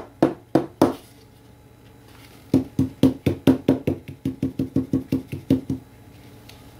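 A stretched painting canvas knocked in quick succession, each knock with a short drum-like ring: four knocks in the first second, then after a pause a faster run of about fourteen at roughly four a second.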